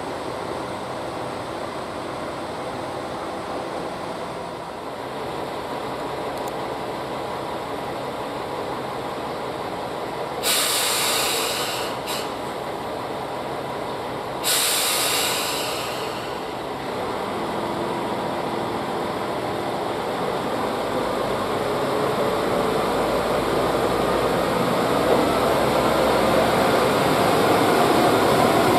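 Two-car diesel railcar idling, with two loud bursts of compressed-air hiss about ten and fifteen seconds in. The engine then revs up, its drone rising in pitch and getting louder, as the train starts moving.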